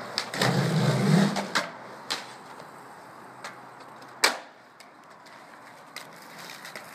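Skateboard wheels rolling loudly over hard ground for about a second and a half, with a few clacks, then one sharp slap as the board lands off a drop about four seconds in, followed by quieter rolling and light ticks.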